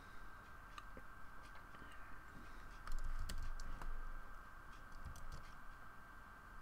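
Faint scattered clicks and taps of computer input work, with a soft low knock about three seconds in, over a steady high electronic hum.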